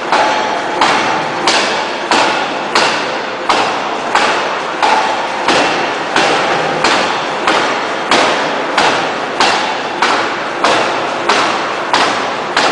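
Electro-hydraulic open die forging hammer striking a red-hot shaft in a steady run of blows, about one and a half a second. Each blow is a sharp impact that trails off before the next.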